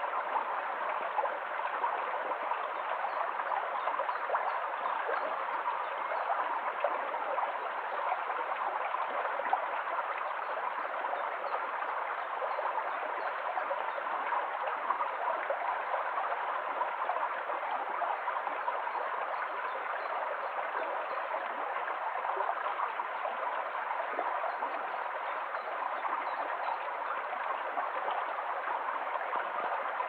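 A shallow creek flowing over stones: a steady, even rush of running water.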